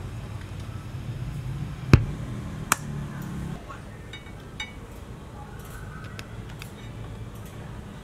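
A mains plug pushed into a power strip, with a sharp click about two seconds in and a lighter click just after, over a low steady hum. A few faint ticks follow as test probes touch the board.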